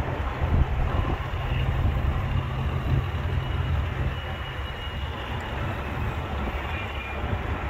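Axial SCX10 II radio-controlled rock crawler's electric motor and gearbox whining faintly as it crawls, over a steady low rumble.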